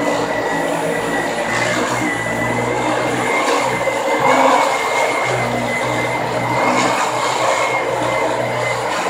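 Vacuum cleaner running on carpet with a thin high whine over its motor noise. Its sound swells and eases every second or two as it is pushed over the carpet.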